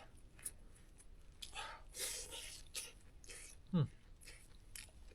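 A person eating: short, quiet bursts of chewing and slurping, with a brief vocal sound that falls in pitch about four seconds in, the loudest moment.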